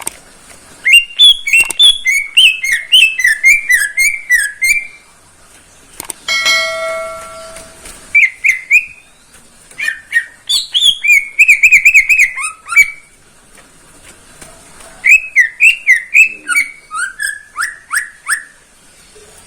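Green leafbird (cucak ijo) singing three phrases of rapid, warbled whistles with short pauses between them. About six seconds in, a steady held tone with overtones sounds for under two seconds.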